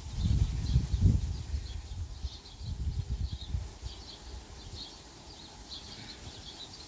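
Gusty wind buffeting the microphone in low, uneven rumbles, strongest in the first second and again around three seconds in, then easing off. Small birds chirp high and repeatedly throughout.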